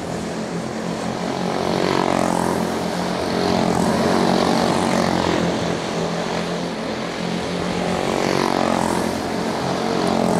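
A pack of quarter midget race cars running flat out around a short oval. Their single-cylinder Briggs & Stratton Animal engines make a steady, buzzing racing note that swells and fades as the cars come past and move away.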